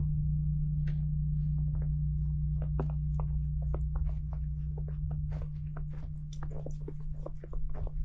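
Footsteps crunching through fresh snow, a quick irregular run of short crunches, over a low steady drone that fades near the end.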